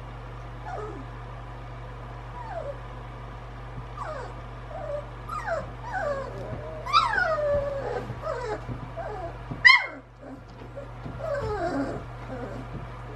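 Young puppies whimpering and squealing: a string of short high cries that fall in pitch, growing busier and louder toward the middle, with one sharp squeal near ten seconds in. A steady low hum runs underneath.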